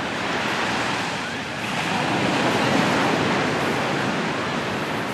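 Sea surf breaking and washing up the shore, swelling to a louder wash about two seconds in, then easing off.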